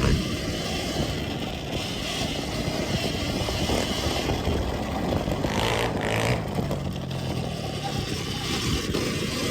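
Surron Ultra Bee electric dirt bike being ridden off-road: a steady noise of the bike and its tyres running over rough ground.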